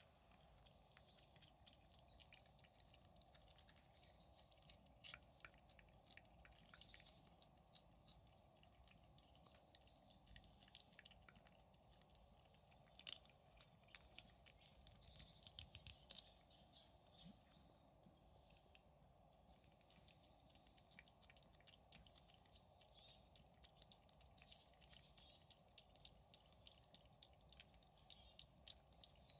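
Faint, rapid wet clicks of a cat's tongue licking puree treat from a squeeze tube, coming in irregular runs with short pauses.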